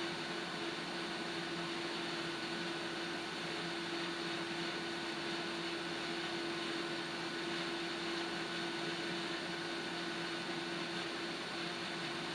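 Water heating on a gas stove burner: a steady hiss with a steady low hum and a faint higher tone over it, unchanging.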